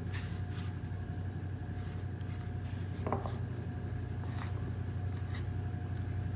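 Steady low hum of a kitchen appliance's motor, with a few faint taps and rustles from handling a folded tortilla.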